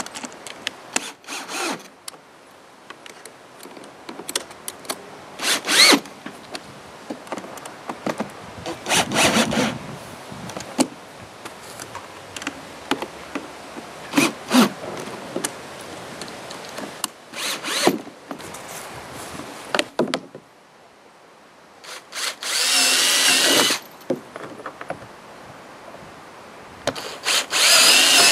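Cordless drill run in short bursts against the plastic end piece of a livestock feeder trough, about seven times, with a longer run and a rising motor whine about three quarters through.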